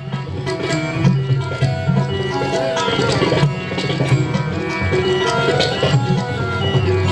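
Roland Fantom X6 keyboard playing a melody over tabla-style percussion, Indian-style music with a steady beat and held notes.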